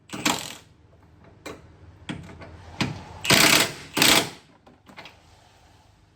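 Metal clanks and rattling from tools and parts being handled during suspension work, with two louder, harsher rattling bursts about three and four seconds in.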